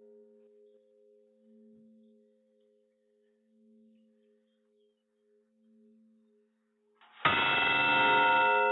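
A bell's ring slowly dying away with a wavering pulse, then the bell is struck again loudly near the end and rings on.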